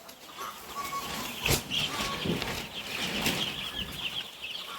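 A flock of two-week-old chicks peeping continuously in many overlapping high chirps, with a sharp knock about one and a half seconds in and a lighter one near three seconds.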